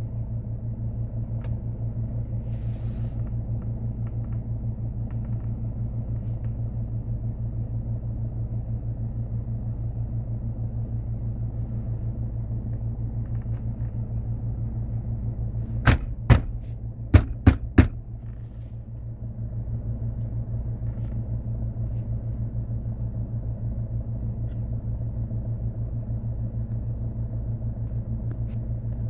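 An engine idling steadily with a low, evenly pulsing rumble. Five sharp clicks or knocks come in quick succession a little past the middle.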